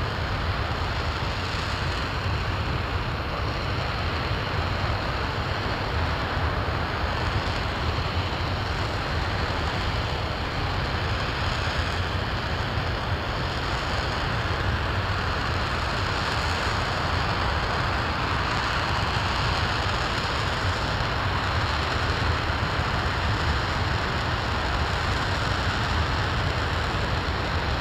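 Space Launch System RS-25 liquid-hydrogen/liquid-oxygen rocket engine running at steady thrust in a ground hot-fire test, partway through the burn: an unbroken, even rush of noise with no change in level.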